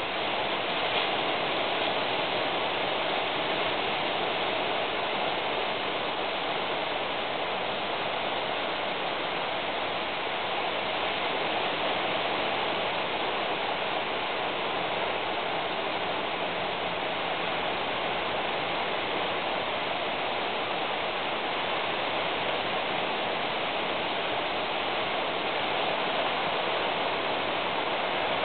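Steady rain falling: an even hiss with no separate drops or thunder standing out.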